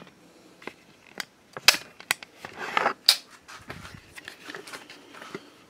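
Handling noise from a video camera being picked up and carried by hand: scattered clicks and knocks with brief rustling, the loudest knocks about a second and a half and three seconds in.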